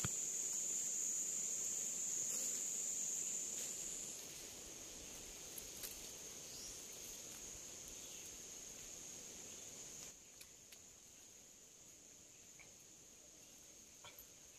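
Steady high-pitched drone of forest insects, louder for the first few seconds and fading in two steps, about four and ten seconds in. A few faint clicks and taps come from bamboo stakes being handled.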